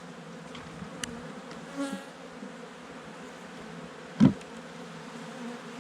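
Honeybees buzzing steadily around an open hive, with a single sharp knock about four seconds in.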